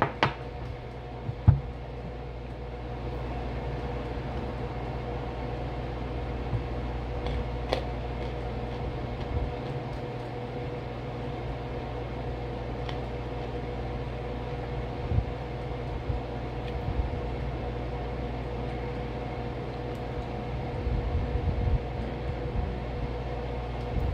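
A steady machine hum carrying a couple of steady tones over a low rumble. There are a few sharp clicks, one just after the start and one about a second and a half in, and some faint low bumps now and then.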